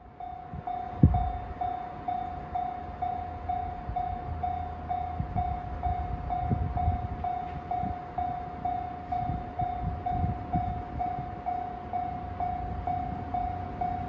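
A Japanese level crossing's electronic warning bell ringing in a rapid, even ding-ding-ding, the signal that a train is approaching. Under it are low, gusty rumbles, with a sharp thump about a second in.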